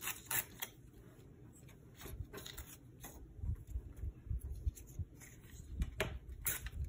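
Paper torn into narrow strips along the edge of a small metal ruler: a few short rips near the start, midway and near the end, with paper rustling and being handled on a cutting mat between them.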